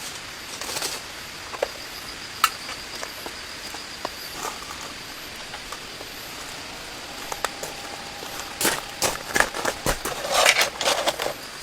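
Steady rain hiss with scattered sharp taps of drops. In the last third, a denser run of rustling and knocks.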